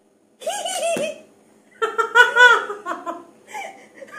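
Women laughing: a short burst about half a second in, then a longer, louder run of laughter from about two seconds, trailing off in smaller giggles.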